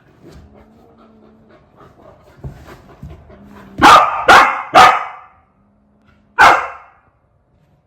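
Golden retriever barking: three loud barks in quick succession about half a second apart, then one more about a second and a half later, after some faint whining.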